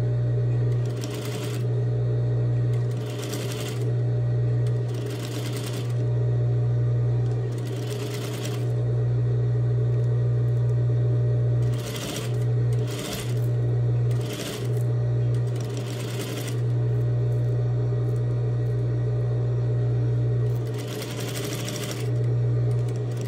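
Industrial flatbed sewing machine top-stitching a folded canvas strap in a series of short runs, stopping and starting as the fabric is guided, over a steady low hum.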